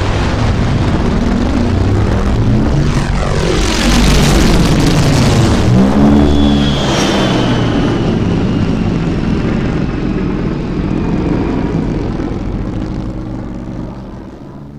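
Sound effect of the Bat, Batman's hovering aircraft: a loud aircraft-like roar with engine tones that sweep down in pitch about four to six seconds in. A high whine then slowly falls as the whole sound fades out near the end.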